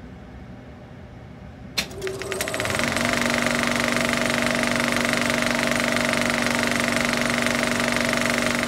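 Film projector starting up: a faint hiss, a click about two seconds in, then a rapid clatter that builds over about a second and runs on steadily with a whir.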